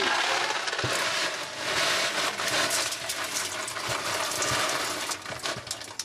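Granular dishwasher salt pouring from a box into the dishwasher's water-filled salt reservoir. A steady rushing hiss of grains with many fine rattling ticks.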